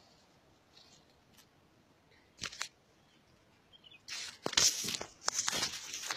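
Handling noise from a wired earphone's inline microphone as it is picked up by its cable and brought to the mouth: a single click about two and a half seconds in, then a flurry of loud scrapes and knocks from about four seconds in.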